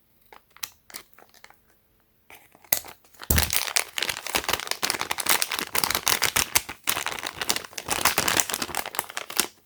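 A few faint clicks, then from about three seconds in, a plastic anti-static bag crinkling loudly and continuously as it is cut open and handled, stopping just before the end.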